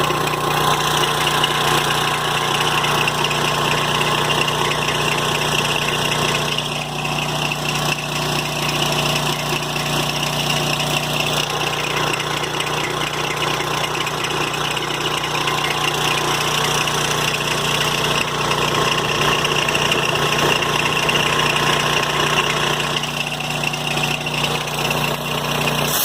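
AireTex 45 high-pressure paintball/scuba compressor running steadily, with its electric motor humming under the clatter of the pump. It carries the high-pitched knock the owner has heard since the motor was replaced.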